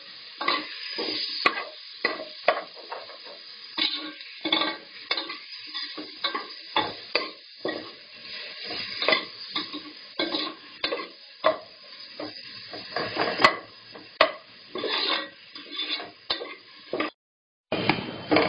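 A metal spoon stirring and scraping chopped tomatoes and onions in an aluminium pressure cooker, irregular clinks and scrapes about twice a second over the steady sizzle of the vegetables frying in oil. The sound cuts out for about half a second near the end.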